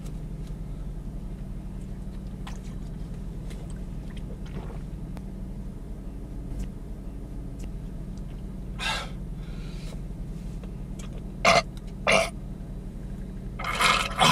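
A man drinking from a bottle of water, then belching: two short sharp burps about eleven and twelve seconds in, and a longer, louder belch near the end. He is trying to ease chest pain he takes for indigestion. A steady low hum of the car runs underneath.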